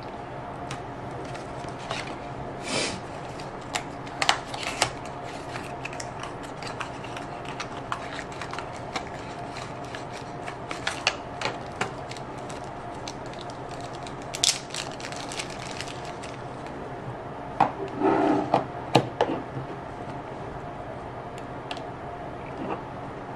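Hands handling a micro USB cable and a plastic dual battery charger on a wooden desk: scattered small clicks, taps and rubbing, with a longer stretch of rustling about 18 seconds in, over a steady faint hum.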